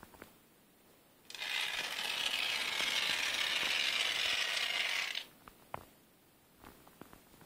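Aerosol polyurethane foam adhesive hissing steadily out of a foam gun's nozzle for about four seconds as a bead is laid along the edge of an XPS foam hive body. A few light clicks come before and after the hiss.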